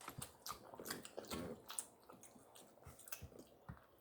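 Close-up mouth sounds of eating spaghetti and meatballs: soft, irregular wet smacks and clicks of chewing, a little louder in the first couple of seconds.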